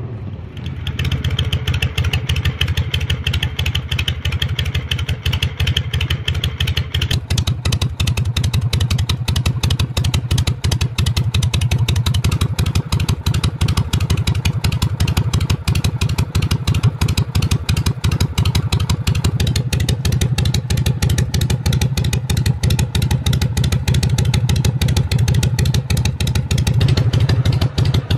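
Harley-Davidson Shovelhead air-cooled V-twin running steadily at idle through open straight pipes, a loping beat of exhaust pulses with no revving.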